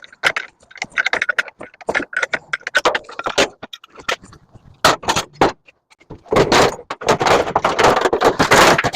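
Metal parts of a microwave oven clicking, clinking and rattling as it is taken apart by hand, then a denser stretch of scraping and rattling from about six seconds in.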